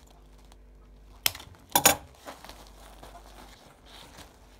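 Plastic doll packaging crinkling as the doll is worked loose from its box, with two sharp crackles about a second and a half in, half a second apart.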